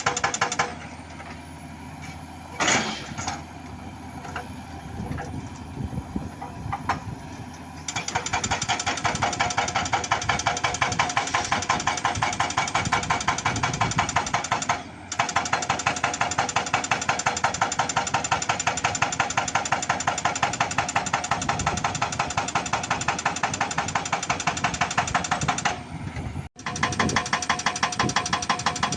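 Excavator-mounted hydraulic rock breaker hammering rock in a rapid, even run of blows over the engine. In the first seconds only the machine runs, with one sharp knock. The hammering then starts and breaks off briefly twice.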